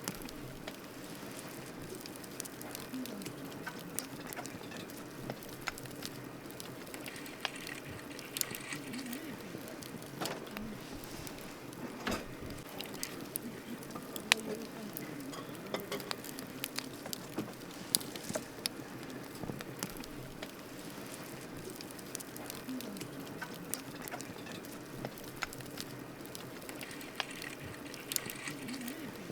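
Wood campfire burning, with irregular sharp crackles and pops over a steady low hiss.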